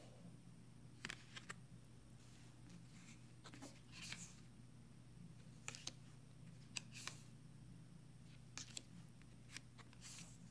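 Near silence with faint, scattered taps and light slides of oracle cards being picked up and set down on a wooden table, over a low steady hum.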